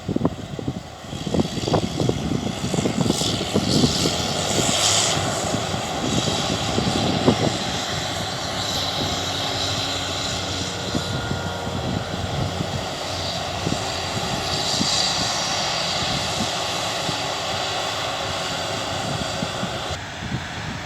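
Heavy farm machinery running at harvest: a steady engine drone from a combine harvester and tractor, with uneven low buffeting over the first several seconds.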